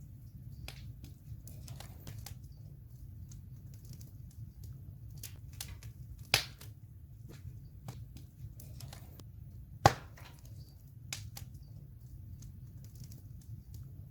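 Wood campfire burning, with scattered crackles and pops over a steady low rumble. Two sharp, loud pops stand out, about six and ten seconds in.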